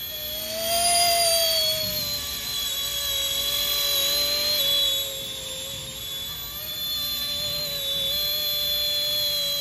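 Whine of a small electric RC scale helicopter's motor and rotors in flight. The pitch rises and eases back about a second in, then holds steady with small wobbles.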